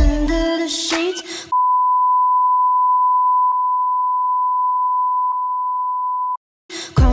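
Pop music with female singing breaks off about a second and a half in, replaced by a steady, high, single-pitched electronic beep held for about five seconds. The beep stops abruptly, and after a brief silence the music comes back in near the end.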